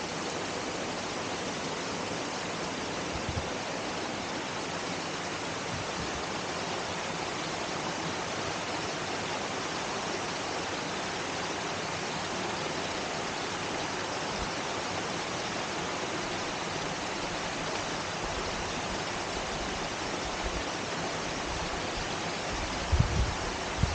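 Steady, even rush of a small rocky stream cascading over stones. A few low thumps near the end.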